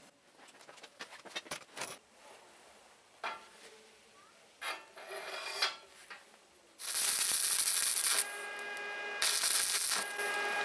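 Steel bracket handled against a steel tube frame with light clinks and scrapes, then stick arc welding: the electrode arc crackles and hisses loudly in two runs, about seven and nine seconds in, with a steady whine underneath between them.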